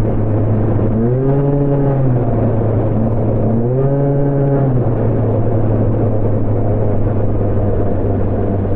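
Honda Gyro scooter engine running at a steady speed, revved up briefly twice, its pitch rising and then falling back each time, about a second in and again about four seconds in.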